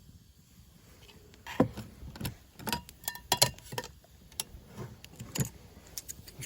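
Irregular metallic clinks and knocks from utensils against cookware, a dozen or so sharp strikes, starting about a second and a half in.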